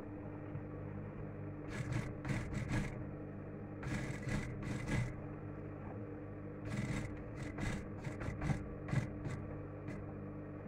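Industrial sewing machine's motor humming steadily, with several short bursts of scraping and rustling as the denim jeans are shifted across the machine table.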